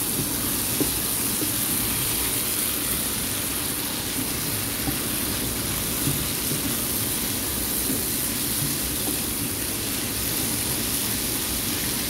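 Beef strips and sliced mushrooms sizzling steadily in a nonstick frying pan while a silicone spatula stirs them, with a couple of light knocks of the spatula against the pan.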